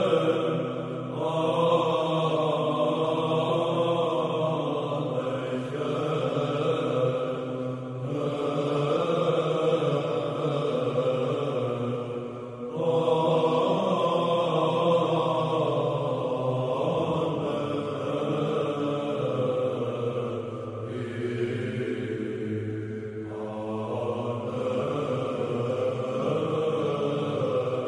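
Byzantine church chant: voices singing slow, long-held melodic phrases over a steady sustained drone note, with a brief break between phrases about twelve seconds in.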